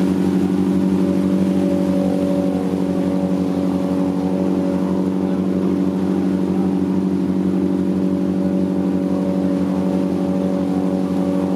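Boat engine running steadily at an even speed, with a constant low hum and a fine, even pulsing.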